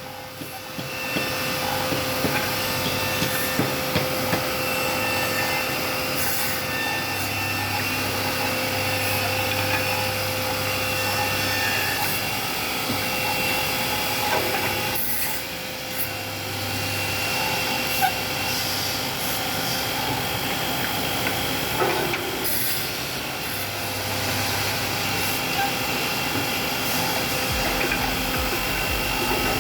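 Automatic double-end wood cutting, drilling and dowel-inserting machine running: a steady motor whine with scattered clicks and knocks, and a low hum that comes and goes three times.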